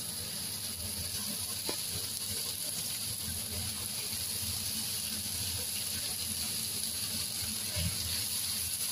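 Beef cubes and sliced onions sizzling and crackling steadily in a hot frying pan, with a soft thump near the end as another handful of raw beef is dropped in.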